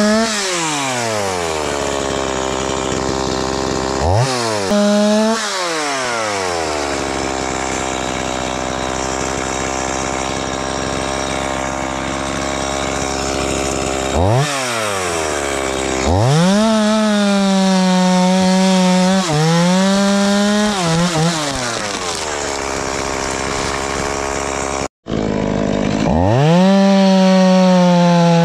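Stihl two-stroke chainsaw idling and revving. There are quick blips near the start and a long stretch at idle, then it is held at high revs for about five seconds in the middle with two short dips. It drops back to idle, and after a brief break it runs at high revs again near the end.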